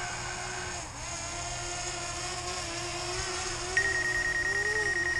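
Small quadcopter drone's propellers humming with a wavering pitch as it is brought down to land. About four seconds in, a rapid high beeping starts: the obstacle-avoidance warning as the drone closes in on a house wall.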